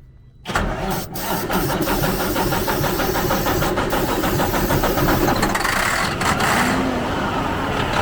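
Heavy truck diesel engine of a 2004 Freightliner Columbia starting on starting fluid after years of sitting. It cranks and catches about half a second in, then runs on steadily.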